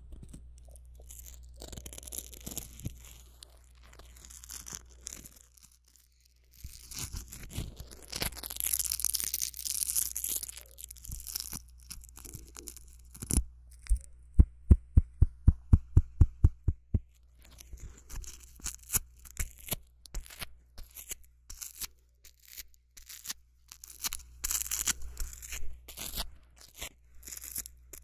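Close-up scratching and tearing handling sounds at a binaural (3D) microphone. About halfway through, a run of sharp, evenly spaced taps at about five a second lasts some three seconds, then the scratching resumes.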